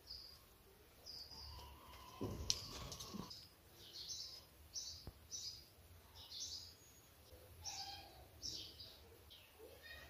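Small birds chirping in the background: short, high chirps repeating about every half second to a second. A sharp click sounds about two and a half seconds in.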